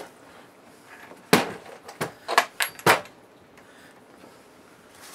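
A handful of sharp knocks and clunks, about five between one and three seconds in, as the empty wooden cabinet of a 1968 Shibaden SV-700 video tape recorder is set down on a tabletop and handled.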